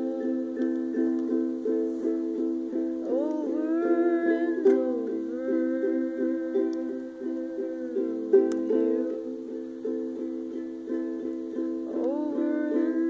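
Ukulele picked in a steady, repeating pattern. A voice sings a wordless, gliding melody over it about three seconds in and again near the end.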